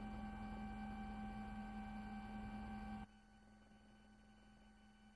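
Helicopter cabin noise: a steady hum with several held tones over a low rumble, dropping sharply in level about three seconds in.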